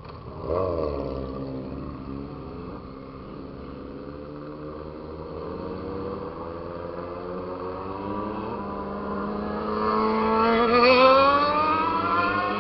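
Motorcycle engine revving and accelerating: a sharp blip of revs about half a second in that falls away, then a long steady climb in pitch and loudness, rising most steeply to its loudest near the end.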